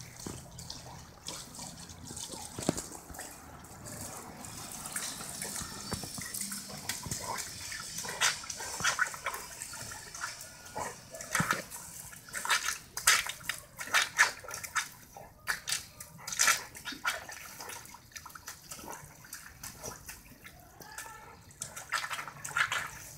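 Water running from a garden hose onto wet pavement while an Irish Setter bites and laps at the stream, making a steady hiss with irregular splashes and snaps, thickest in the middle and again near the end.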